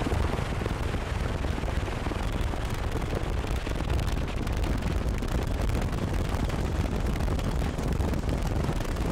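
A vehicle driving: a loud, steady rumble and rush of engine, tyre and wind noise.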